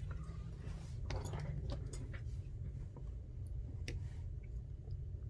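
Scattered small clicks and a brief scraping rustle of phone parts and tools being handled while an iPhone XR is put back together, over a steady low hum.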